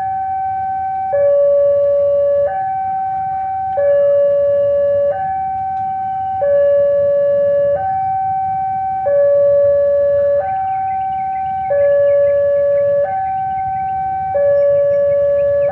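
Two-tone hi-lo siren, a high and a low note taking turns, each held a little over a second, over a low rumble.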